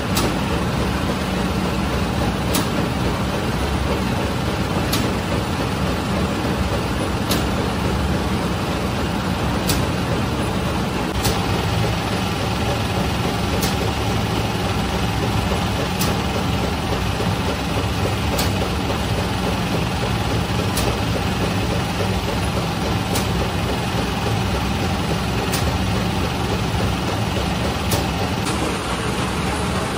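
Conveyor bread oven running with a steady machine hum from its motors and fans, with a short sharp click about every two and a half seconds.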